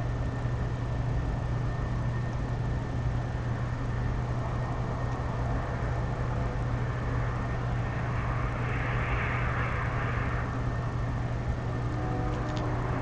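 Steady low hum and noise of city background at an outdoor nest-cam microphone. About eight seconds in, a hissy swell rises and fades over a couple of seconds, and a few faint clicks come near the end.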